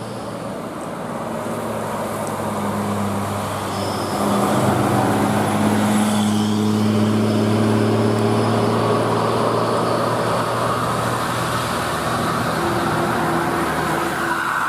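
A bus's diesel engine running steadily with a low drone. It grows louder over the first four seconds or so, then holds.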